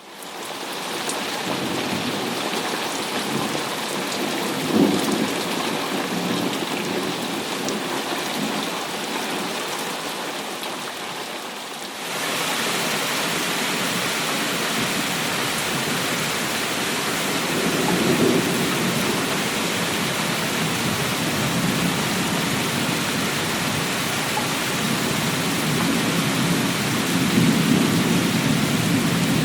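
Steady heavy rain with low rolls of thunder, the loudest about five seconds in and again near the end. About halfway through, the rain suddenly gets louder and hissier.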